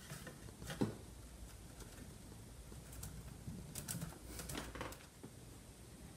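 A kitten pawing and scrabbling in a wicker basket of toys and cloth: faint scattered rustles and light taps, a cluster of them a few seconds in.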